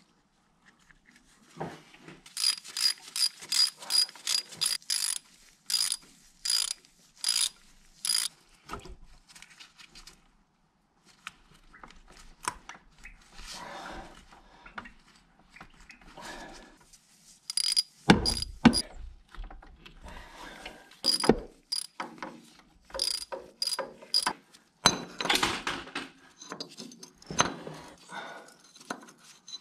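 Hand tools working on metal tractor parts: runs of short metallic clicks and strokes with a ringing high tone, quick at first and then slower, and a heavy knock about eighteen seconds in.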